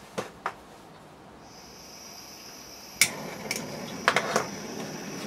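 Gas hissing steadily from the nozzle of a portable butane soldering iron once its valve is opened, while a disposable lighter is clicked several times to light it: one sharp click about three seconds in and a quick run of clicks a second later.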